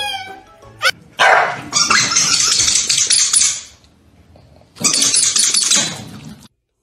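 Two corgis scuffling, snarling and barking in two rapid, noisy bursts of a couple of seconds each, with a short pause between.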